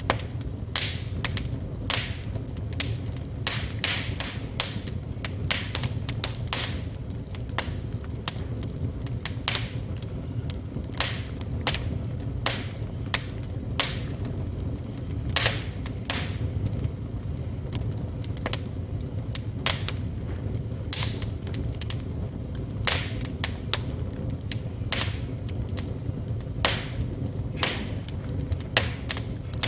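Wood fire burning in a fireplace, crackling and popping irregularly, a couple of sharp pops a second, over a low steady rumble.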